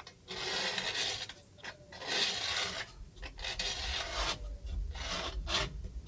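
Tip of a screw scraping along a sheet of 8mm plywood, scoring a straight cutting line: repeated scraping strokes, each about a second long, with short pauses between.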